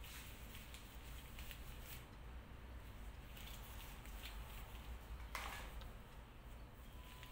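Faint rustling and light clicks of long hair being handled and sectioned by a stylist's hands, with one louder rustle about five seconds in, over a low steady room hum.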